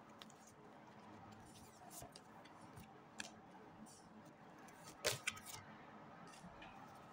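Tarot cards being handled: a few soft clicks over faint room hiss, then a short sharp snap about five seconds in as a card is laid down on the table.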